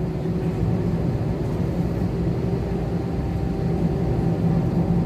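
Steady low drone of an airliner's cabin at the gate: air-conditioning and aircraft machinery noise with a constant hum.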